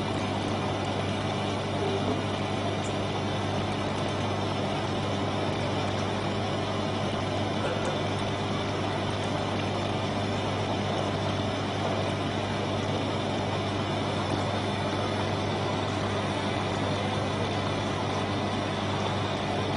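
A steady machine hum with a constant hiss, unchanging throughout.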